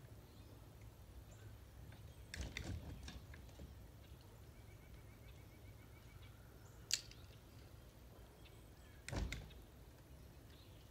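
Quiet handling noise on a boat deck: a short cluster of knocks a couple of seconds in, a single sharp click near the middle, and a dull thump near the end, over a low steady background.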